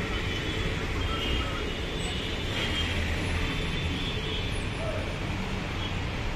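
Bus engine running steadily, with a low hum and steady traffic noise.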